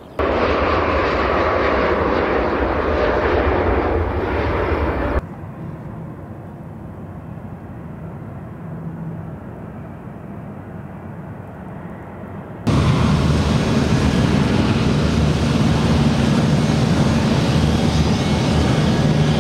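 Jet airliner engines running, heard as a steady loud noise in three abruptly cut stretches: loud for about five seconds, much quieter for about seven, then loud again for the last seven.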